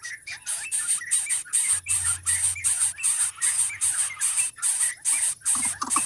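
Greater coucal nestling hissing to beg for food: a steady run of short hisses, about three a second.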